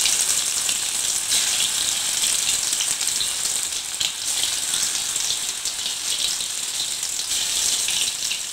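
Banana-flower vada balls deep-frying in hot oil, with steady sizzling and crackling.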